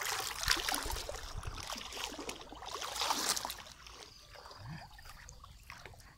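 Water splashing and sloshing as a person wades through shallow water to a hooked fish and lifts it on the line. The splashing is loudest over the first three seconds or so, then dies down.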